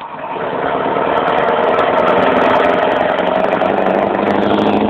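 Scania 164 580's V8 diesel engine running under way as the truck draws near, growing louder over the first two seconds and then holding a loud, steady drone.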